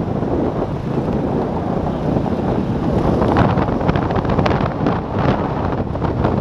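Wind rushing and buffeting over the camera microphone of a Vespa GTS 250 scooter riding in city traffic, with the scooter running underneath. It grows a little louder, with crackling gusts, from about three seconds in as the scooter speeds up.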